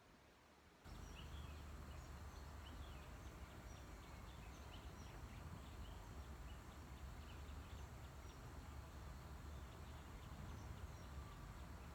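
Faint outdoor ambience: a steady low rumble with many short, high chirps scattered through it, starting about a second in.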